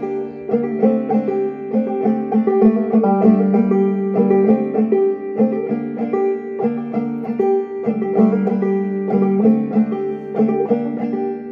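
Clawhammer banjo playing a steady, rhythmic tune, with quick plucked notes over a ringing drone string.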